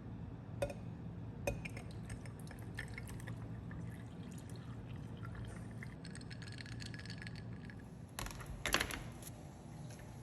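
Light handling sounds: a few sharp clicks and scattered small taps, then a brief burst of liquid pouring or splashing near the end.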